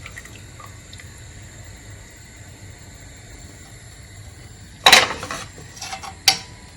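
Kitchenware clattering: a loud clink about five seconds in, a few lighter knocks, and a second sharp clink near the end, over a low steady background.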